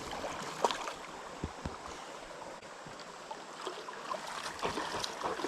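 Creek water running steadily, with a few short splashes and knocks scattered through it.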